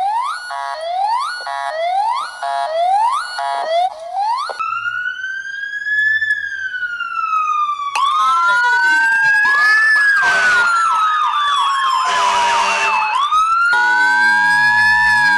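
Electronic siren sounds of an emergency-alert alarm: a run of quick rising whoops, then a slow wail that rises and falls. About halfway in, several wails overlap with a fast yelp, and near the end a steady tone sounds under another rising wail.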